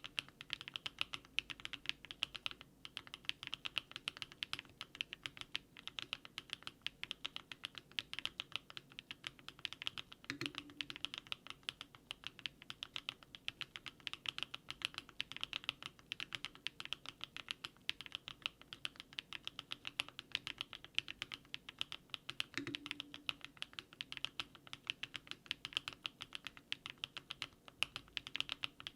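Mechanical keyboard fitted with HMX 80Retros Film JOKER switches being typed on steadily and quickly, a dense run of crisp clacks. A deeper thud stands out twice, about ten seconds in and again near twenty-three seconds.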